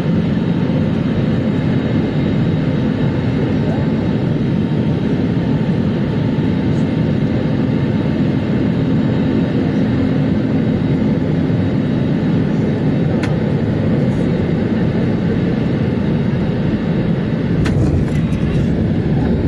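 Cabin noise of an Airbus A320neo's CFM LEAP-1A engines and airflow on final approach: a steady rushing roar with faint engine whine tones. About 18 seconds in, the main gear touches down hard, with knocks and rattles and a swell of low rumble.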